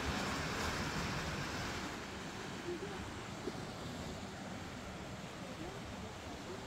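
Sea surf washing over rocks below a cliff, a steady hiss, a little louder in the first two seconds, with some wind on the microphone.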